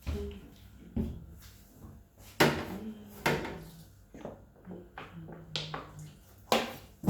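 Intermittent sharp knocks and clatters of fridge drawers, shelves and containers being handled, four main knocks a second or so apart with smaller rattles between.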